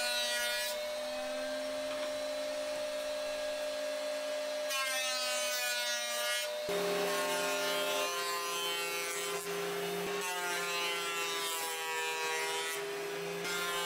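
Benchtop thickness planer running as boards feed through, planing off old finish: a steady motor whine that drops to a lower pitch about halfway through.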